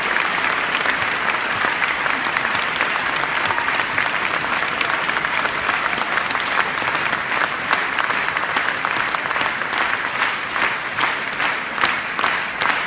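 Audience applauding, a dense steady clapping that thins out into fewer, separate claps near the end.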